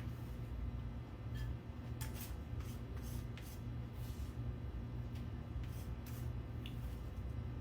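Short scrapes and light taps of a kitchen utensil moving chopped onion into a container, a dozen or so scattered through, over a steady low hum.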